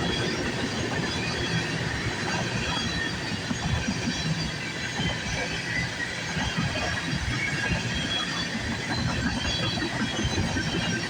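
CN freight train's cars rolling past: a steady rumble and clatter of steel wheels on the rails, with faint scattered high squeals.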